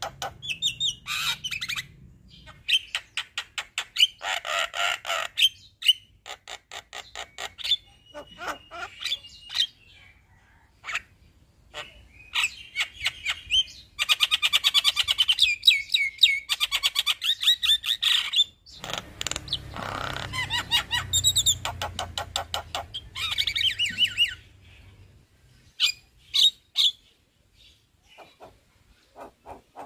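Male Javan myna singing in full voice: long rolling runs of rapid clicking chatter and trills mixed with squawks and whistles, broken by short pauses, thinning to scattered calls near the end.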